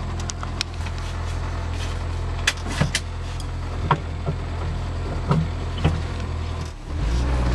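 Renault R5 engine running at a steady note, heard from inside the cabin, with a few sharp knocks and rattles scattered through it. About seven seconds in the note dips, then comes back deeper and louder.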